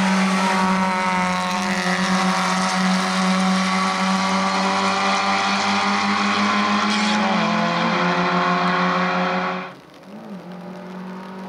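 1300 cc four-cylinder touring race cars at high, steady revs on a wet track. The engine pitch steps down once about seven and a half seconds in. The loud note cuts off suddenly near ten seconds, leaving a quieter engine note.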